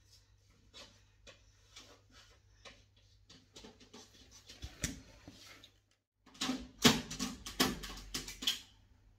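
Handling noise from hands and a vinyl reborn doll head: scattered light clicks and rubs, then, after the sound briefly cuts out, a louder run of knocks and rubs as the head is brought up close to the camera.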